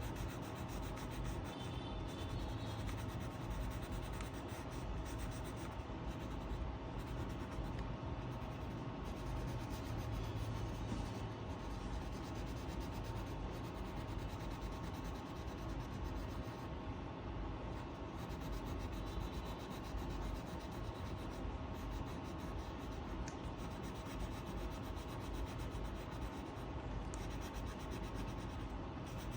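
A coloring pen or pencil rubbing back and forth on paper: continuous scratchy coloring strokes.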